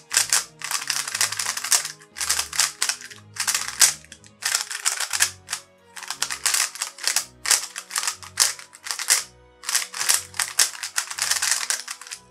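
A brand-new QiYi MoFangGe QiHang Sail 6.0 3x3 speed cube being turned fast by hand. Its layers make rapid runs of plastic clicking and rattling, in bursts with short pauses.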